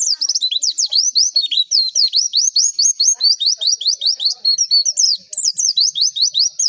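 White-eye (pleci) singing a fast, loud run of high, sharply sweeping chirps, several notes a second, without a break.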